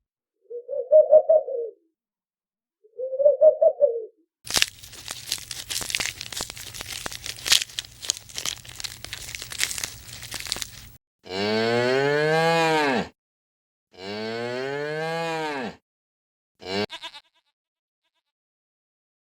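Cow mooing: two long, drawn-out moos, each rising then falling in pitch, in the second half. Before them come two short, louder, higher-pitched calls and several seconds of crackling noise over a low hum.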